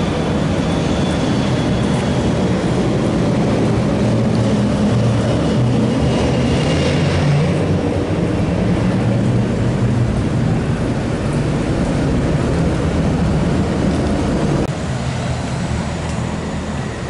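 Turbofan engines of a British Airways Embraer regional jet at takeoff power during the takeoff roll and climb-out: a loud steady rumble with a faint high whine that fades by the middle. The sound drops suddenly near the end.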